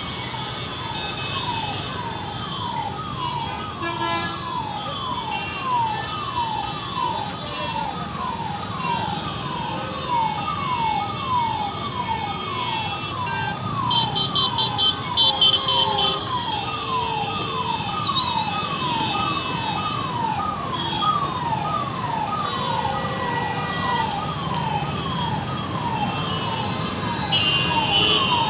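Electronic siren sounding a short falling sweep over and over, about one and a half sweeps a second, at a steady pitch and level, over the rumble of city traffic. Brief higher tones join about halfway through.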